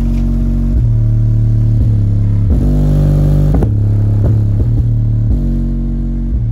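Pioneer 5-inch PA woofer in a ported enclosure playing a loud, deep bass line at high excursion: held low notes that step to a new pitch every half second to a second.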